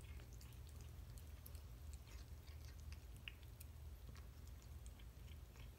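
Faint, scattered clicks of a cat chewing its food, over a low steady hum.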